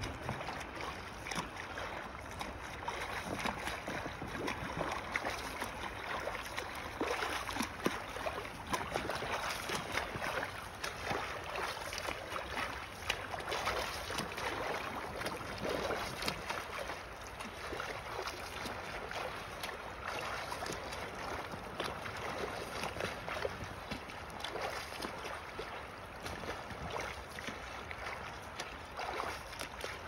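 Sea water splashing and lapping close to the microphone, in irregular small splashes.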